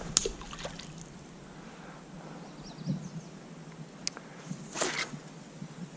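A fishing reel and its line give a short rushing sound about five seconds in, with a few light clicks, over quiet river ambience. The reel makes a noise that doesn't sound good, the sign of a malfunctioning reel.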